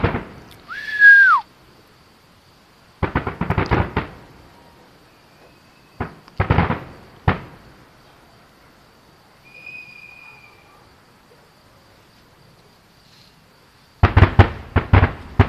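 Aerial fireworks going off: clusters of bangs and crackles every few seconds, a long gap, then a rapid volley of bangs near the end. About a second in, a loud whistle falls in pitch.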